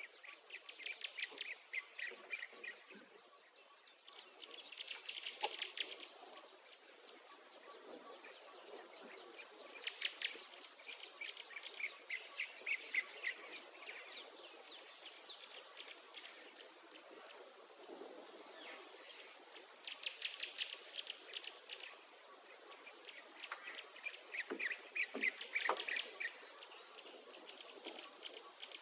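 Rural nature ambience of birds and insects: bursts of rapid trilling calls every few seconds over a high-pitched insect call that pulses about once a second.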